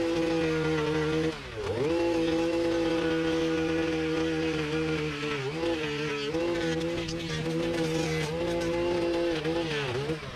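Gas string trimmer engine running at high revs, its pitch dipping sharply about a second and a half in, a few times midway and again near the end, as the line bogs down in thick brush and recovers.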